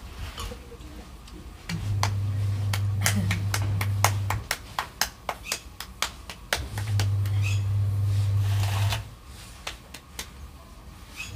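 Bare hands patting and slapping soft maize-flour dough back and forth into a makki di roti, a quick run of slaps several a second from about three to seven seconds in, with a few more after. A loud low hum starts and stops twice under it.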